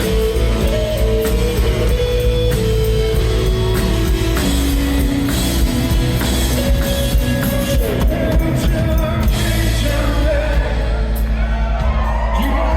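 Live rock band playing at full volume, with sustained melody lines over a steady, heavy beat.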